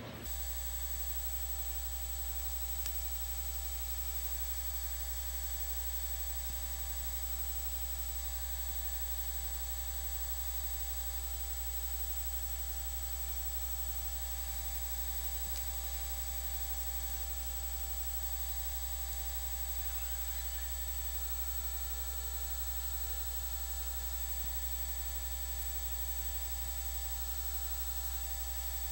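Steady electrical hum and buzz with a faint hiss, cutting in abruptly in place of the arena sound and holding unchanged throughout. It is typical of a fault or dropout in the recording's audio line.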